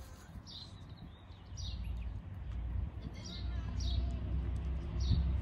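A songbird chirping over and over, short falling chirps about once a second, over a low rumble that grows louder from about halfway in.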